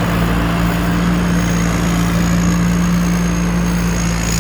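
Combine harvester's 260 hp engine and threshing machinery running steadily: a constant low engine hum with a thin, steady high whine above it.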